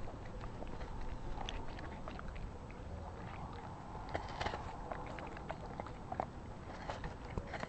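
Czechoslovakian wolfdog gnawing and chewing an apple held between its paws, with irregular crunches and clicks of teeth on the fruit, busiest about halfway through.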